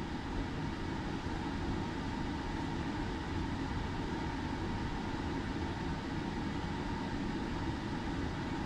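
Steady background hum and hiss with no distinct events, a faint steady tone running through it.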